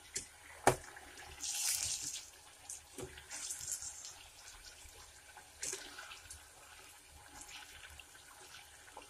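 Chicken pieces frying in hot oil in a steel pot, sizzling in surges of hiss, while a metal ladle stirs them and scrapes and clinks against the pot; a sharp clink under a second in is the loudest sound.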